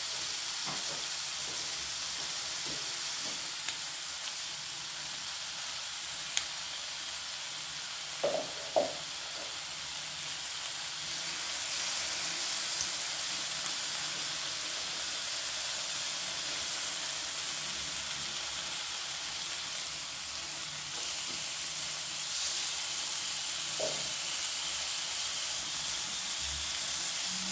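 Marinated lomo beef steaks, with sliced onions and peppers, sizzling steadily on a Korean barbecue grill pan, with a few short sharp ticks now and then.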